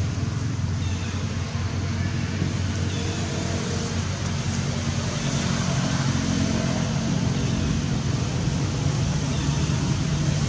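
Steady low mechanical hum under a constant hiss, slowly getting a little louder, with a few faint high chirps over it.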